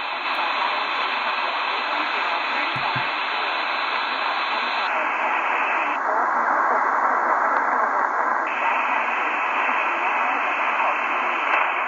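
Tecsun PL-330 radio's speaker hissing with static on 660 kHz medium wave in lower-sideband mode, searching for a weak distant station. The hiss goes duller in two steps about five and six seconds in, then brighter again a couple of seconds later, as the bandwidth filter is stepped.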